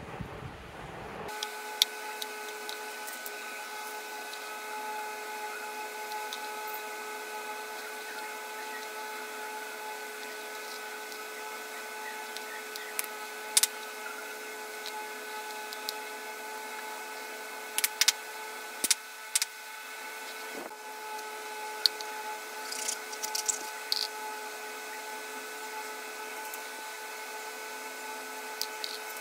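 A small electric motor running at a steady pitch, with scattered sharp clicks.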